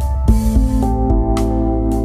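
Background music of sustained chords that change twice early on, with a few light percussive hits.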